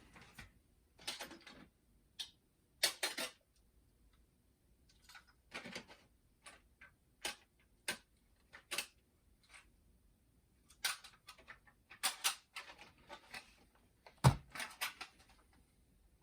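Clicks and rattles of the boombox being handled, a string of separate short sounds with one heavier knock near the end.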